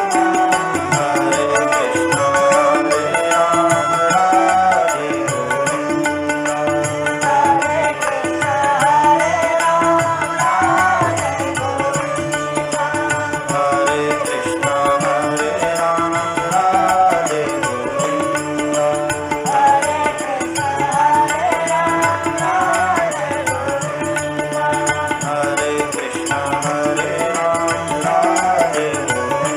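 Devotional Hindu bhajan music to Krishna, with a flowing melody that bends in pitch over continuous percussion accompaniment.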